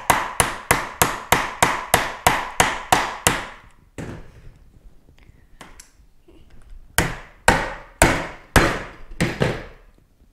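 Hammer striking the butt of a screwdriver handle held upright on a table, driving the screwdriver into a part: a quick run of about a dozen sharp blows, roughly three a second, then after a pause a few single knocks and a slower run of about six.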